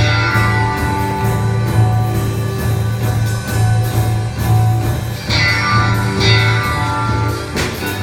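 Instrumental electric-guitar music played by a robot band: held guitar notes over a low note pulsing about twice a second, with a brighter chord struck twice a little past halfway.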